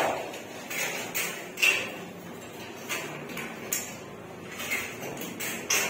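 Irregular metallic knocks, taps and scrapes as metal furring channel is handled and fitted against a concrete wall, several short strikes spread unevenly.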